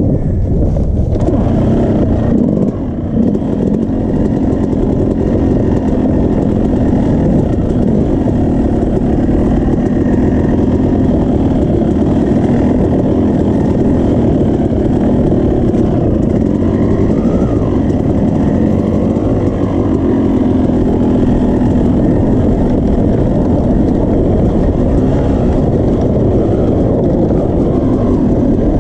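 Yamaha YZ250 two-stroke dirt bike engine running steadily under throttle as it is ridden over rough ground, heard from on the bike. The engine note drops briefly about three seconds in, then picks back up.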